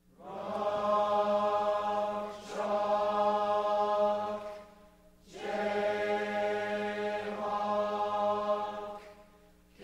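Many voices chanting in unison, choir-like, in two long drawn-out phrases; each swells in, holds steady and fades out.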